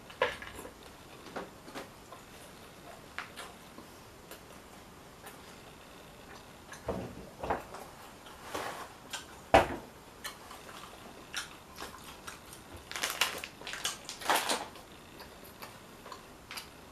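Intermittent crunching and chewing of a hard corn taco shell, in scattered crackly bursts with a denser run near the end. A single sharper thump a little under ten seconds in is the loudest sound.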